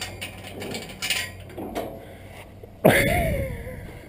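Steel cattle-pen gate being unlatched and opened: a few light metal clinks from the gate and its chain, then about three seconds in a sudden knock followed by a wavering tone about a second long that falls in pitch.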